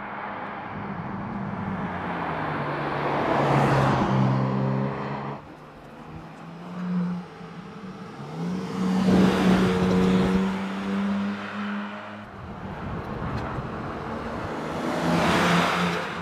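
BMW M4 Competition's twin-turbo 3.0-litre inline-six exhaust as the car drives past three times, each pass swelling to a peak and falling away, the engine note stepping up and down in pitch.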